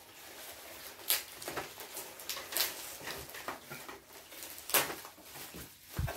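Bubble wrap and packing material being handled as resin model kit parts are unpacked: irregular rustling with a few sharper clicks and taps.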